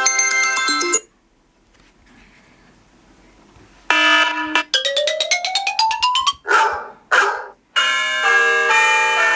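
iPhone 8 Plus ringtones played one after another through the phone's speaker. A chiming tone ends about a second in; after a short pause comes a run of notes climbing steadily in pitch, then two short recorded dog barks, then another chiming tone with many steady notes.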